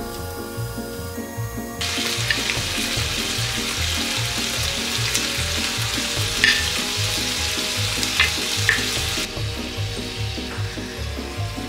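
Marinated beef short ribs (LA galbi) sizzling in a frying pan as the marinade cooks down, with a few sharp clicks. The sizzle starts about two seconds in and cuts off sharply near the end, over background music with a steady beat.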